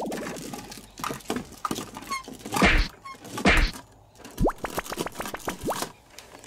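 Plastic toys knocking and clattering, as a toy excavator bucket presses on a plastic toy centipede. There are scattered clicks and two heavier thunks about three seconds in, then a few quick rising whistle-like sweeps near the end.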